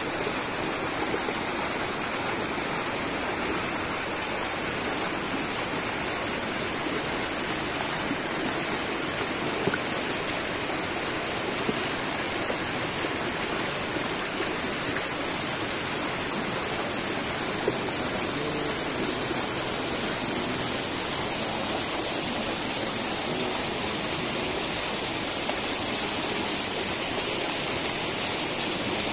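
Steady rushing of a stream of grey, ash-laden water flowing through volcanic debris, loud and unchanging, with no speech.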